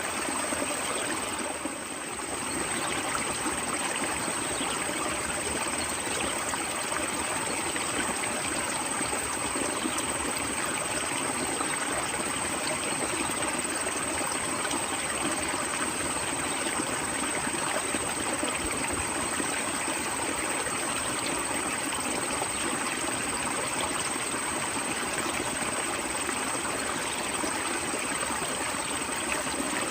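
Stream water flowing steadily, an even rushing and trickling.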